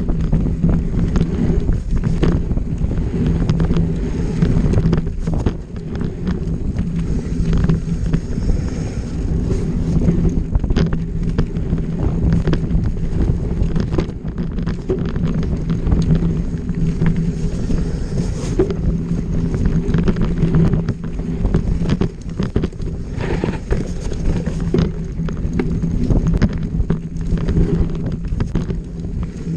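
Off-road motorcycle engine running at a fairly steady pitch while ridden on a trail, with wind buffeting the microphone and frequent knocks and rattles.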